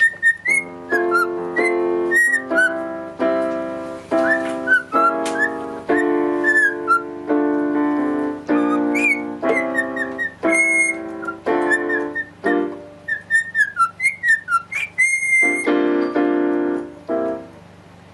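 A cockatiel whistling short rising and falling phrases along with piano chords. The piano chords stop near the end.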